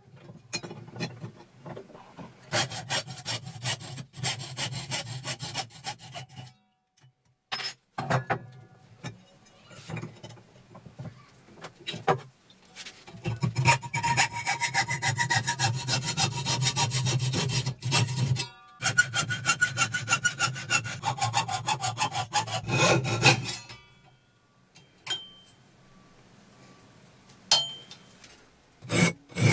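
Hand hacksaw cutting square metal tubing clamped in a vise: rapid back-and-forth strokes in several runs with short breaks, the loudest run in the middle carrying a ringing metallic note. It goes quieter near the end, with a few sharp knocks.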